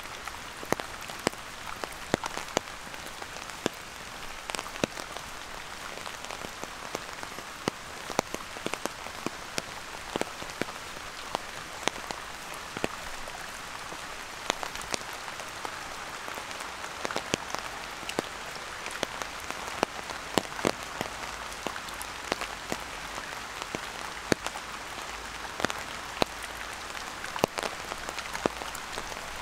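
Steady rain falling, with frequent sharp, irregular ticks of single drops landing close by.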